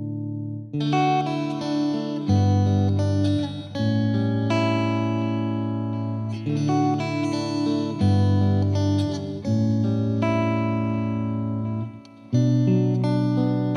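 Slow instrumental music on guitar: plucked notes and chords held and changing every second or two, with a short gap near the end.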